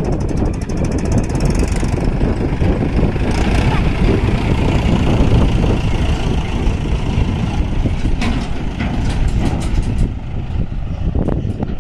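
Heavy diesel engine running steadily, with a few sharp knocks about two-thirds of the way through.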